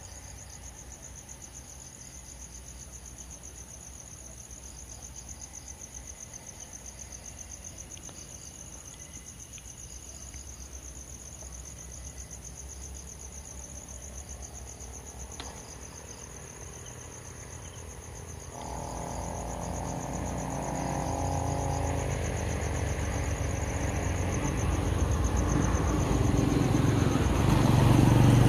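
Crickets trilling steadily in a fast, even pulse. From about two-thirds of the way in, a motor vehicle approaches along the road, its engine and tyre noise growing steadily louder toward the end.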